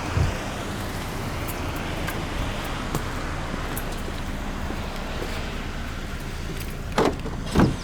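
Steady car noise: a low even hum under a wide hiss, with a couple of sharp knocks near the end.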